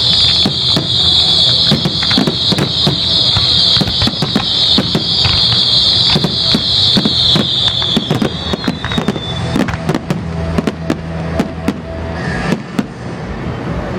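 Fireworks display: a rapid run of bangs from bursting shells over a loud, high-pitched whistling that dies away with falling tones about nine seconds in. After that the bangs come more sparsely and less loudly.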